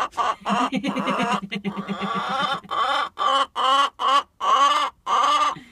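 Hen calling over and over: a fast stuttering cluck about half a second in, then a string of loud squawks that rise and fall, about two a second. A hen ready to lay, fussing because the nest box she wants is already taken.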